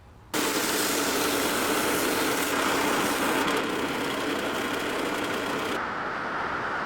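A power tool's motor running steadily, starting a moment after a brief quiet; its high hiss drops away about six seconds in.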